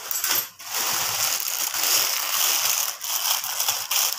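Clear plastic packaging crinkling and rustling as it is handled: a few sharp rustles, then continuous crackling as the bag is turned over in the hands.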